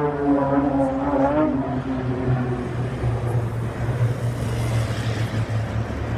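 A formation of aerobatic display planes droning past, their engine pitch dropping in the first second and a half as they go by. After that comes a steady low engine drone mixed with road traffic.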